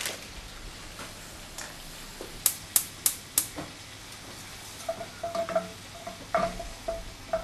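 Cookware at the stove: four sharp metallic taps in quick succession, then a spoon stirring and scraping in a pot of tomato sauce with a faint sizzle.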